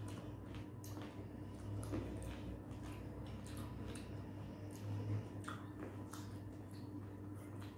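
Two people biting and chewing green grapes: wet squishing mouth sounds with many small scattered clicks, over a steady low hum.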